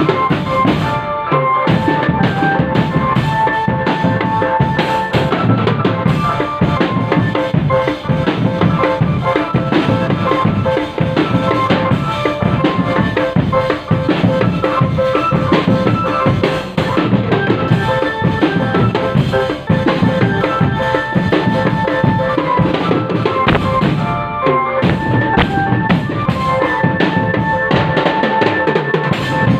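Indonesian marching drum band playing: snare and bass drums beating continuously under a melody of held notes.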